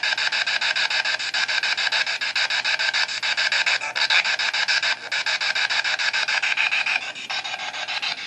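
Spirit box radio sweeping through FM stations: a steady rush of static chopped into rapid pulses, about ten a second.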